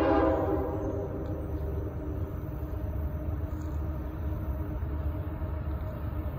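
Diesel locomotives of an approaching CSX coal train: a loud chord of horn tones dies away in the first half second, then a steady low engine rumble with a droning hum.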